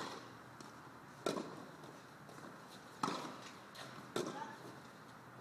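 Tennis rally on a clay court: rackets striking the ball, four sharp pops one to two seconds apart.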